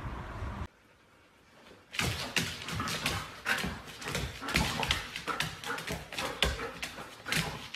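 Two golden retrievers play-wrestling on a hardwood floor: a rapid, irregular clatter of paws and claws scrabbling and thumping on the wood, mixed with the dogs' own vocal noises. It starts about two seconds in, after a brief low rumble and a second of near silence.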